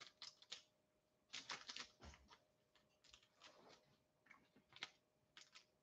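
Faint light clicks and ticks in small scattered clusters: trading cards and their plastic sleeves and holders being handled and set down.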